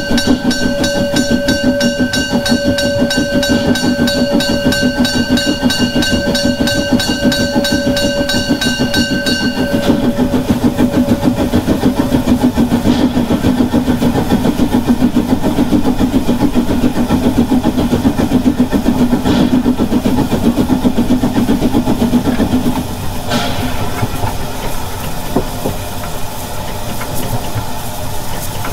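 Narrow-gauge steam locomotive 99 4011-5 working a train with a steady pulsing beat. A steady high tone sounds over it for the first ten seconds and then stops, and the locomotive's sound drops somewhat about six seconds before the end.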